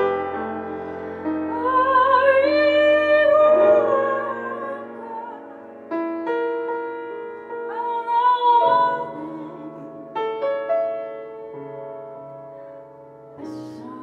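A jazz song performed on grand piano with a woman's voice: she sings long held notes with vibrato about two seconds in and again around eight seconds in, over sustained piano chords. In the last few seconds the piano plays on alone with slow, spaced chords.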